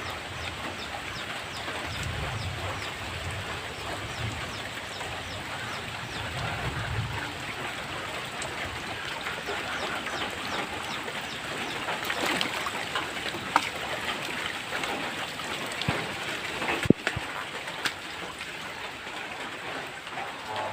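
Steady heavy rain pouring down, an even hiss with a few sharp taps in the second half.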